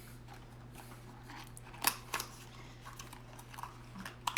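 Small clicks and crinkles of a mystery-box pin package being handled and opened by hand, with a few sharper snaps about two seconds in and near the end, over a steady low hum.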